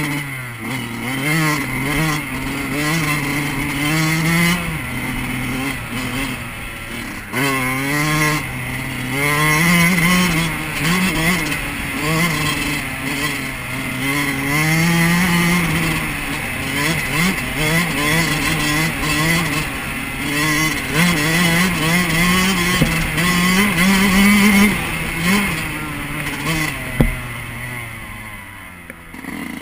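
2008 Yamaha YZ125's 125 cc two-stroke single-cylinder engine under way on a dirt trail, its pitch rising and falling over and over as the throttle is opened and closed. It eases off near the end, with a single sharp knock shortly before.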